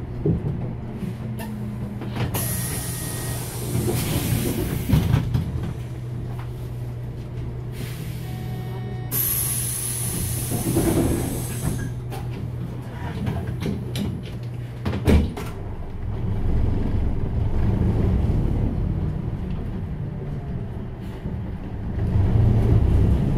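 Hyundai New Super Aerocity CNG city bus heard from inside near the front: the engine idles steadily while compressed air hisses loudly twice, a few seconds apart, as the pneumatic front door works. After a thump about 15 seconds in, the engine pulls harder as the bus moves off.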